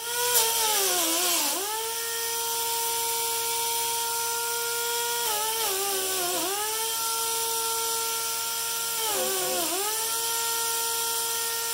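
High-speed electric power tool grinding or sanding fiberglass body filler: a steady whine with a hiss over it, its pitch dipping three times as the tool is pressed into the work and picking up again.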